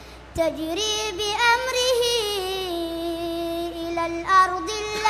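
A boy reciting the Quran in a melodic, drawn-out chant: after a brief pause he sings one long ornamented phrase, holding and slowly bending each note, then breaks off briefly near the end before the next phrase.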